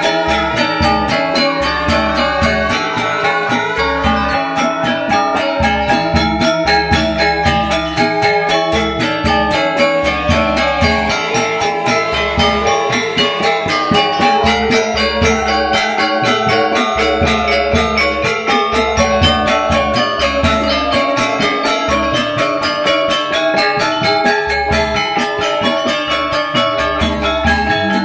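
Balinese gamelan playing: bronze metallophones struck in fast, even strokes, over deep low tones that come and go, with kendang hand drums and bamboo suling flutes.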